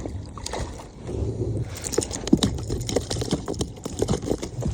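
A freshly caught trout flopping and thrashing against the kayak, making rapid, irregular knocks and slaps that are densest in the second half.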